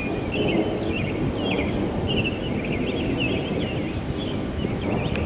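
Wind buffeting the microphone with a steady low rumble, while birds chirp repeatedly in quick, short calls throughout.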